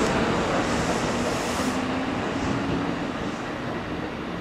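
Electric train on the Kintetsu Nara Line running along the platform, its rumble fading steadily as it moves away, with a faint motor hum under the noise.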